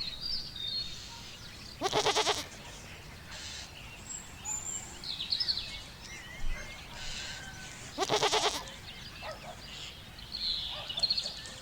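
A goat bleating twice, about six seconds apart, each a short quavering call, with faint high chirps in the background.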